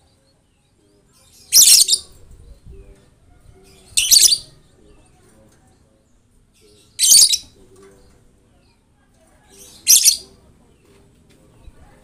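Lovebird giving four short, shrill, high-pitched calls, each about half a second long and spaced two to three seconds apart.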